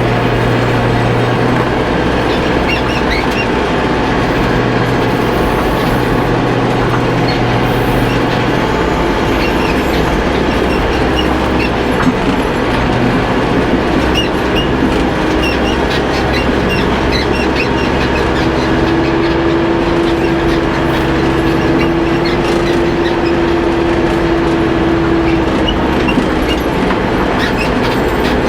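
Backhoe tractor engine running steadily, with a light clatter of small ticks over it.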